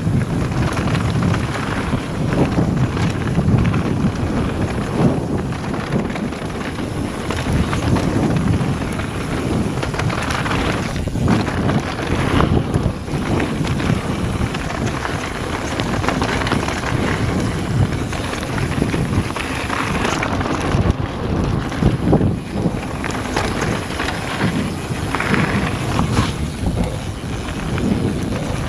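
Mountain bike descending a rough dirt trail at speed: wind rushing over the microphone, with the tyres rumbling over the dirt and the bike clattering over bumps.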